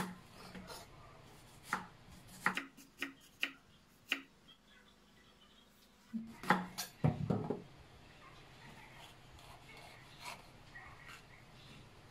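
A chef's knife chopping a red onion on a wooden cutting board: scattered sharp knocks of the blade meeting the board, with a louder run of knocks a little past halfway.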